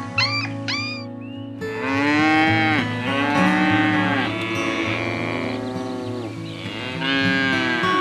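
An animal calling: a few short squeaky calls, then from about a second and a half in, long drawn-out calls with many overtones that rise and fall, over background music with steady notes.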